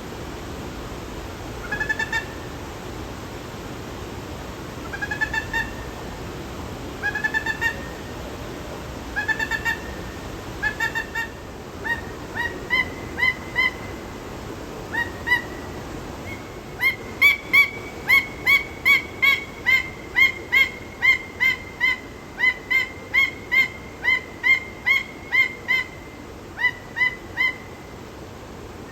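Peruvian thick-knee calling with short, rising, whistled notes. At first they come in small clusters every couple of seconds, then about halfway through they build into a long, fast, even series of about two notes a second.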